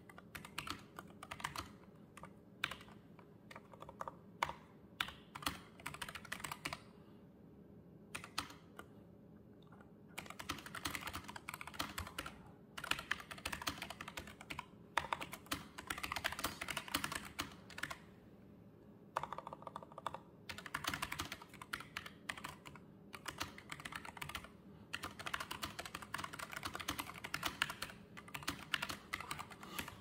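Typing on a NuPhy Air75 low-profile mechanical keyboard with PBT keycaps. For the first several seconds there are scattered single key clicks, then several runs of fast continuous typing with short pauses between them.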